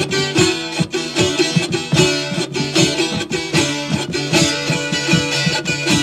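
A charango, the small Andean stringed instrument, strummed fast in an even, driving rhythm, playing a Norte Potosí carnival tune.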